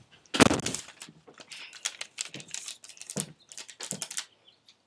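Paper being handled: irregular rustling and light clicks, with a louder rustle about half a second in.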